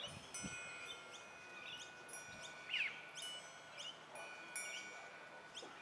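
Small songbirds chirping: short high notes repeating every half second or so, with one louder sweeping call about three seconds in.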